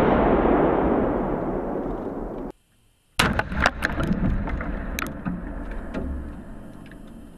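Rumble of a C4 demolition charge blast on tree-trunk posts, rolling away and fading over about two and a half seconds. After a short break comes a closer recording of the blast's aftermath: low rumble with scattered sharp cracks of debris and wood chips landing, dying away.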